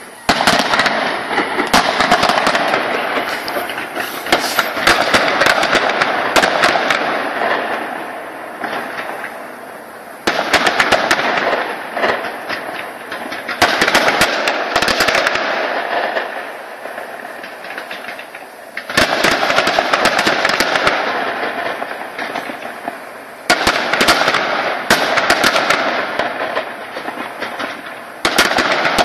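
Fireworks display: shells bursting with bangs and rapid crackling, coming in waves that surge in loudness about 10, 19, 23 and 28 seconds in.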